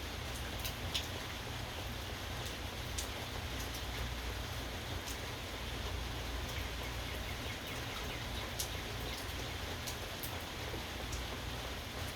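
Steady rain falling, a continuous hiss with scattered sharp drop ticks, over a steady low rumble.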